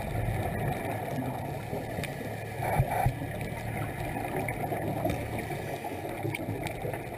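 Underwater sound heard through a dive camera's housing: a steady low rumble and gurgle of scuba divers' exhaled bubbles, with a louder burst of bubbles about three seconds in and a few faint clicks.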